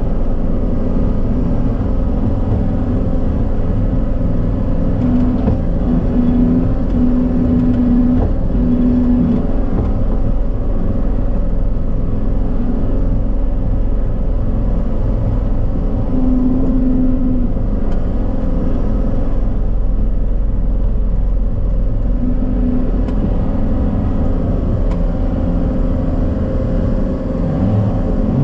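John Deere 333G compact track loader's diesel engine running steadily under work, a higher note rising out of the drone briefly several times.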